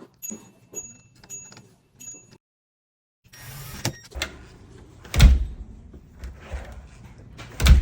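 Door latch hardware clicking with a metallic ring, then a door being worked, with two loud thumps as it shuts against the frame.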